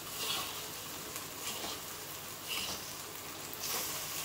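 Kuey teow rice noodles sizzling steadily in a hot wok as they are stir-fried, with a utensil scraping against the wok about once a second.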